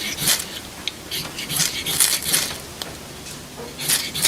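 A ferrocerium rod struck several times with the square edge of half a pair of children's scissors: short rasping scrapes that shower sparks to light tinder.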